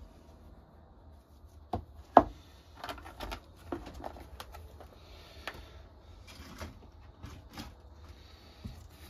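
Irregular knocks, clicks and light taps of objects being handled on a workbench, with one sharp knock a little over two seconds in.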